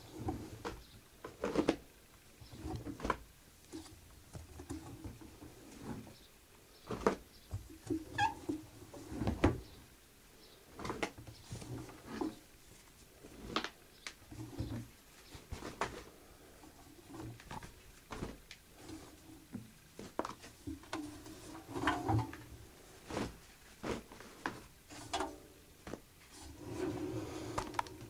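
Damp towels being pulled by hand out of a front-loading washing machine's drum: irregular rustling and soft knocks against the drum and door seal.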